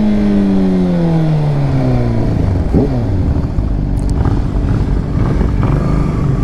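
Sport motorcycle engine, heard from the rider's seat, with its note falling steadily over about two seconds as the throttle is closed and the bike slows. There is a quick rev blip about three seconds in, then a low steady rumble.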